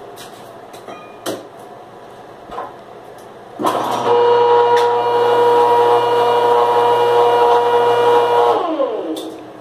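Ridgid 1822 pipe threading machine switched on about a third of the way in, running unloaded with a steady motor and gear whine while its self-oiling system feeds cutting oil to the die head. Near the end it is switched off and winds down, the whine falling in pitch. A few light clicks come before it starts.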